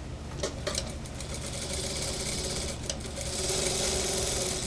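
Industrial lockstitch sewing machine stitching a suit sleeve into the armhole. A couple of sharp clicks come first, then two runs of stitching: a short one from about a second and a half in, and a longer, louder one after a brief stop near the three-second mark.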